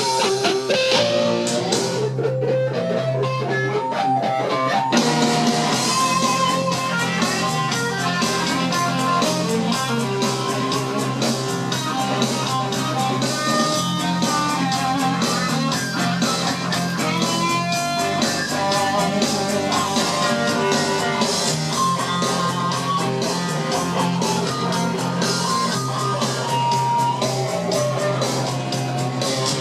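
Guitar-led rock music played from a CD through a Klein & Hummel Telewatt VS 56 tube amplifier and loudspeakers, growing fuller about five seconds in.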